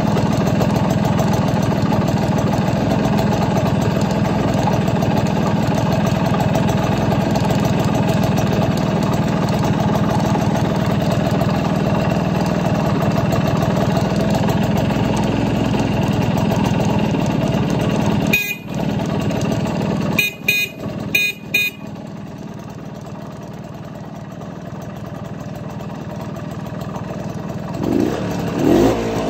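BSA D13 Bantam's single-cylinder two-stroke engine idling steadily. About two-thirds of the way through, a few short sharp sounds break in, after which it runs more quietly and slowly builds again near the end.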